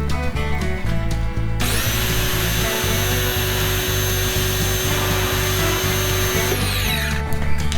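Background electronic music with a steady pulsing bass beat and sweeping synth glides.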